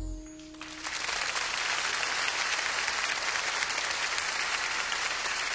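The last held notes of a song fade out, and about a second in a large audience breaks into steady applause.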